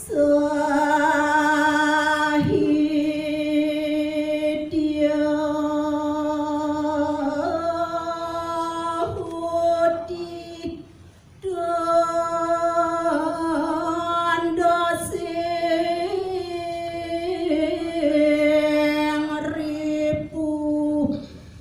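A woman's voice chanting a verse of Balinese kakawin poetry unaccompanied, in long held notes that bend slowly from pitch to pitch, with one breath break a little after halfway.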